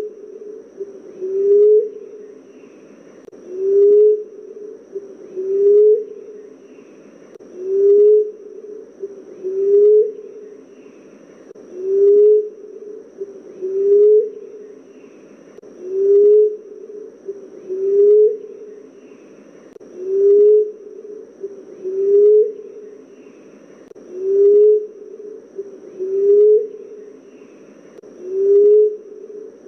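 Common emerald dove cooing: a low, soft coo that rises slightly at its end, repeated evenly about every two seconds.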